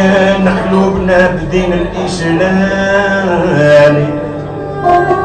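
A man singing over live band music, with a banjo among the accompanying instruments.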